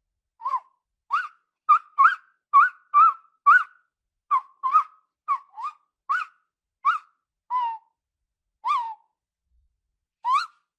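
Tapir giving a series of short, high whistling squeaks, each one rising and falling in pitch, about two a second with a pause near the end.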